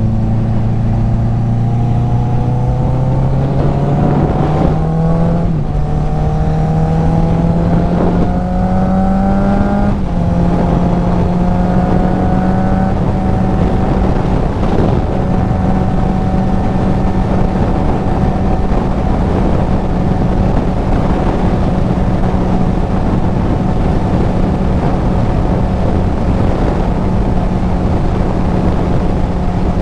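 Kawasaki Z900 inline-four with an aftermarket full exhaust, heard from the rider's helmet, accelerating and shifting up a couple of times in the first ten seconds, then holding a steady cruise. Wind rushes across the microphone throughout.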